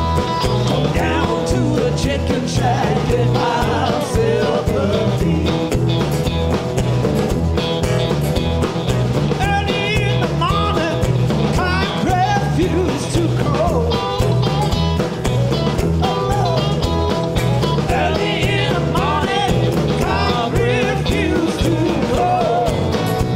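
Live band playing: a man sings lead over acoustic and electric guitars, bass guitar and a drum kit, with a steady beat.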